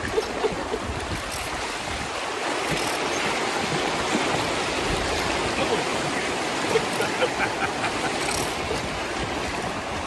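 Rushing whitewater of a class I riffle splashing around an inflatable raft, a steady hiss.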